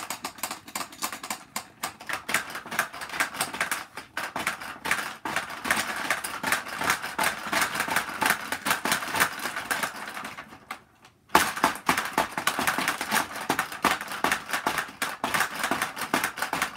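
Hungry Hungry Hippos game in play: rapid, continuous clacking of the plastic hippo levers and heads snapping at marbles. The clatter stops for under a second about two-thirds of the way through, then starts again abruptly.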